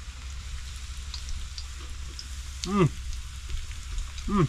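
Pieces of flour-coated snapper frying in hot oil in a pan: a steady sizzle with small crackles. Twice, a short voiced sound falling in pitch, like a person's appreciative "mmm" while tasting.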